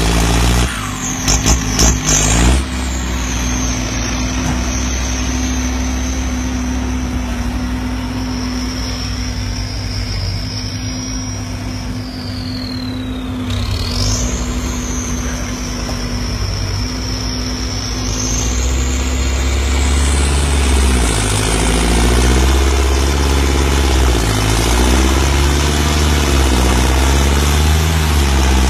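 Turbocharged diesel tractor engine working hard under load, with a high turbo whistle that climbs and falls as the throttle changes. A few sharp knocks come near the start.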